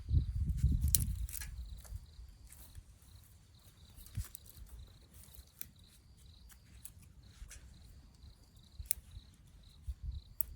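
Insects chirping in short, evenly repeated high pulses, with scattered sharp clicks and crackles. A loud low rumble fills the first two seconds or so.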